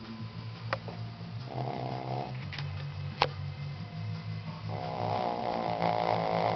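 11-year-old Shih Tzu snoring: two snores about three seconds apart, the second one longer. A sharp click falls between them.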